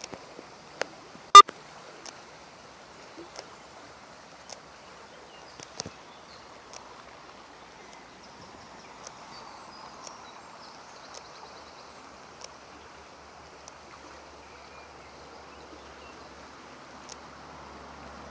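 Flowing stream water, a steady rushing noise. Scattered faint clicks cross it, and one sharp, loud click comes about a second and a half in.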